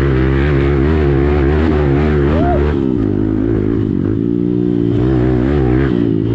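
Hero XPulse single-cylinder motorcycle running through an aftermarket Akrapovič exhaust while being ridden, its exhaust note rising and falling with the throttle.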